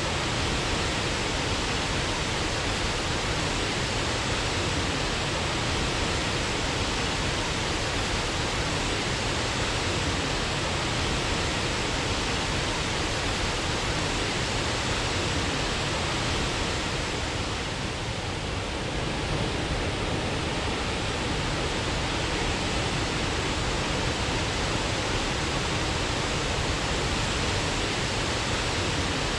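Waterfall: a steady, unbroken rush of falling water, dipping slightly in level about two-thirds of the way through.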